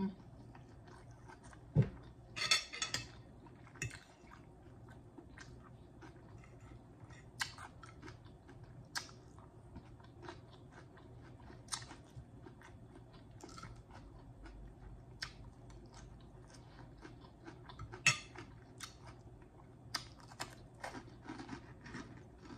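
Close-miked chewing and mouth clicks of a person eating fish balls and salad, with a couple of louder crunchy bites about two and a half seconds in and again about eighteen seconds in.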